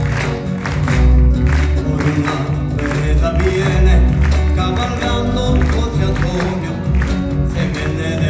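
Live ensemble playing Peruvian music: plucked guitar lines over a deep bass beat that lands about once a second.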